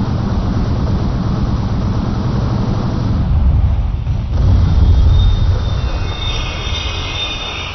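Electric rotary minigun firing a long continuous burst, the shots running together into one steady din. Near the end the firing dies away, leaving a high whine as the sound fades.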